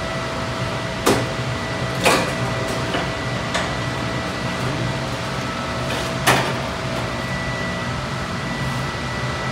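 Steady mechanical rush and hum of crematory machinery around a hot cremation retort, with a few sharp knocks, the loudest about two seconds in and again past the middle, as the body on its wooden tray is pushed into the retort chamber.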